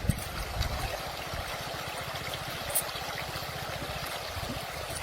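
Water running and trickling steadily, with a low, rapid flutter underneath.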